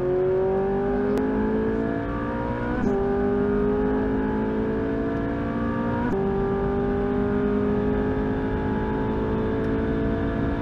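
Ferrari 458 Italia's 4.5-litre V8 at full throttle, heard from inside the cabin, its pitch rising steadily through the gears. Two quick upshifts, about three and six seconds in, each drop the pitch before it climbs again.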